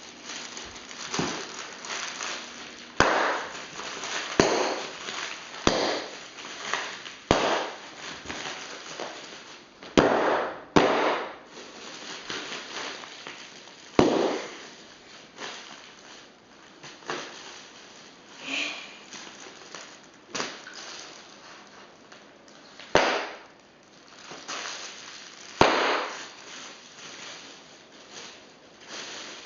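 A series of about a dozen sharp knocks or bangs, irregularly spaced a second to a few seconds apart, each dying away quickly.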